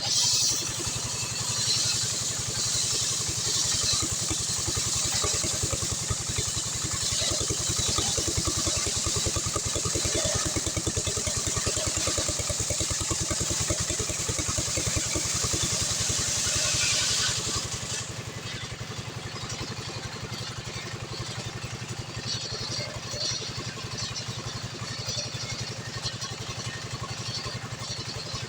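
Stihl 070 two-stroke chainsaw milling a log of acacia hardwood: the engine runs steadily under load with the bright hiss of the chain cutting, which stops suddenly about two-thirds of the way through. After that the engine keeps running, quieter.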